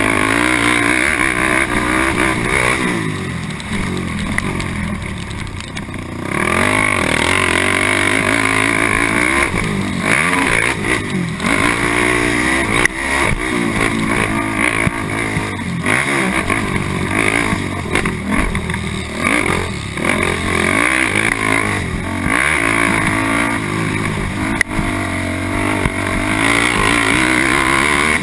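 Honda TRX450R quad's single-cylinder four-stroke engine racing over a dirt motocross track, revving up and down with the throttle. It eases off for a few seconds about three seconds in, then pulls hard again.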